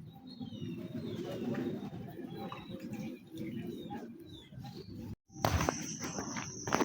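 Birds cooing, with short chirps over it. About five seconds in the sound cuts out abruptly, and a steady high-pitched whine with sharp clicks takes over.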